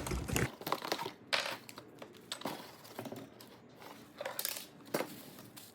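Metal parts of a cabinet jack kit being handled and set down: a handful of scattered clinks and knocks.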